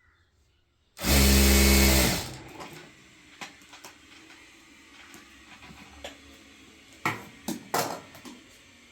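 Electric sewing machine motor run in one short burst of just over a second, then a few light clicks and knocks.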